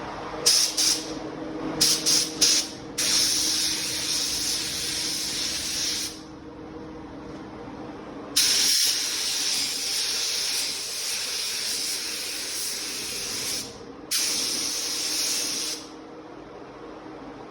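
Compressed-air paint spray gun hissing in three or four short blips, then in long spraying passes of several seconds each that start and stop abruptly.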